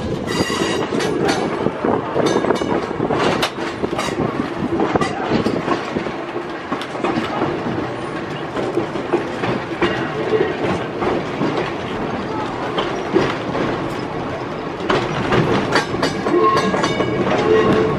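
Vintage electric streetcar running on rails, heard from inside its front cab: a steady running noise and hum, with wheels clicking and clattering over rail joints.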